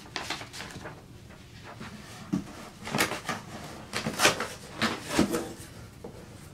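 Corrugated cardboard scraping and rustling as a flat cardboard sheet is gripped and pulled up out of a cardboard shipping box. It comes as a run of short scrapes and knocks, the loudest about four seconds in.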